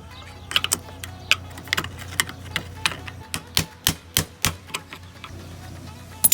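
A quick, irregular run of sharp clicks and taps, some fifteen in a few seconds with the loudest pair at the very end, over a low steady hum: hand tools knocking against metal parts of an old gas water heater as it is taken apart for scrap.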